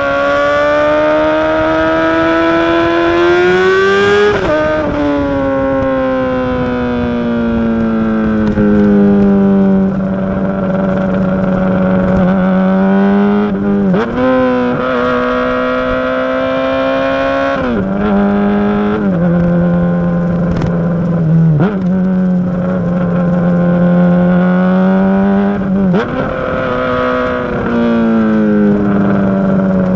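Honda CBR600RR inline-four engine running loud through a Yoshimura RS5 full exhaust system with the baffle in. The note climbs slowly in pitch, then falls suddenly several times and holds steady between the drops, as the bike is ridden through the revs.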